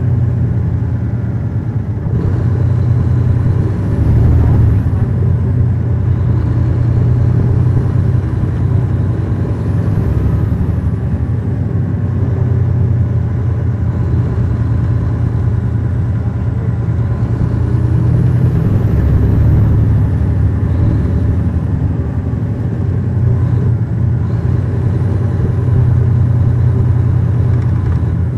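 Caterpillar C13 ACERT inline-six diesel of a 2009 NABI 40-SFW transit bus, heard from the rear seats inside the bus, running steadily under way. Its note swells and eases a few times.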